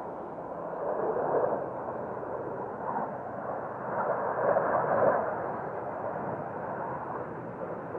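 Distant roar of the Air Force Thunderbirds' F-16 jets flying over in formation: a steady rushing noise that swells twice.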